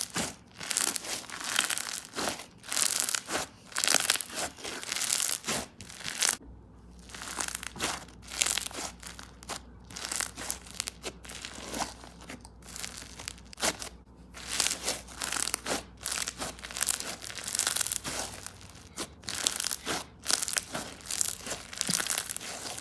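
Bead slime being squeezed, folded and pressed between the hands, making repeated crackly, crunching pops with each press.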